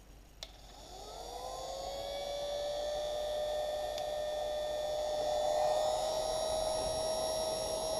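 Heat gun switched on with a click, its fan motor spinning up in a rising whine over about a second and a half, then running steadily with a hum and a rush of air.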